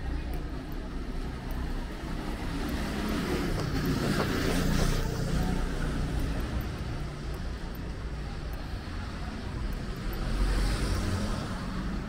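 City street traffic: a low steady rumble, with vehicles passing, the loudest about four to five seconds in and another near the end.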